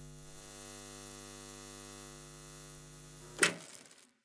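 Steady electrical hum with a dense row of evenly spaced overtones, broken about three and a half seconds in by a brief loud burst of noise, after which the sound cuts off.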